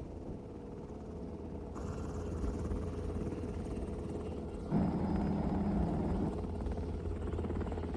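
Small Little Bird-type helicopter hovering close overhead: a steady low rotor and engine drone. It grows louder about two seconds in, and louder again near the five-second mark, where a stronger hum joins it.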